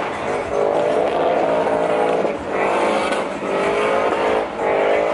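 A truck engine revving hard at high rpm in repeated climbing surges, about one a second, as at a truck race or burnout pit.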